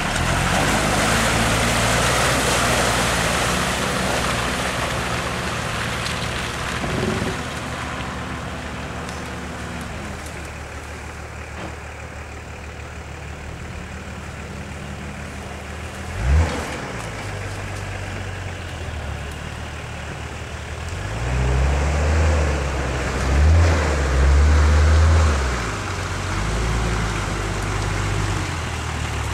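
Off-road 4x4 engine working hard, its pitch rising and falling as it is revved in repeated bursts during the second half, with a sharp thump about sixteen seconds in.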